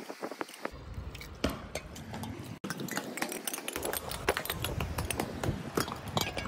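A hand squeezing and lifting soaked dried squid pieces in water in a metal pot: a run of wet squelches, drips and small splashes, with a low rumble underneath from about a second in.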